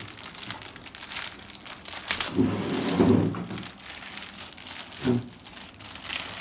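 Plastic toy packaging crinkling and rustling as pieces are taken out of it, with a short vocal sound about two and a half seconds in and another brief one near five seconds.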